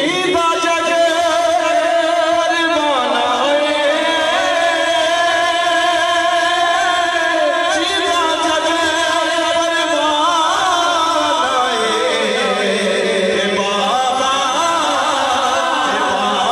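A man singing a naat, a devotional song in praise of the Prophet, into a microphone with no instruments. He holds long, wavering notes and drops lower about three seconds in and again near twelve seconds.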